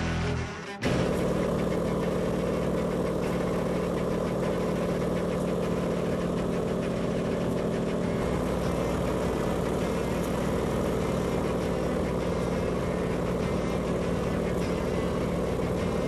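Light aircraft's engine and propeller droning steadily, heard from inside the cabin in flight. The drone starts abruptly under a second in, as the music before it cuts off.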